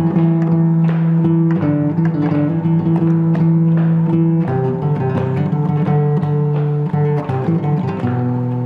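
Nylon-string classical guitar fingerpicked solo: a run of plucked notes over ringing bass notes that change every few seconds.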